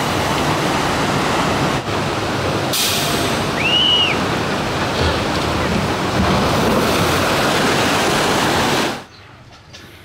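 Steady loud rush of water on a log flume ride, water pouring down the chutes and churning in the splash pool. It cuts off suddenly about nine seconds in.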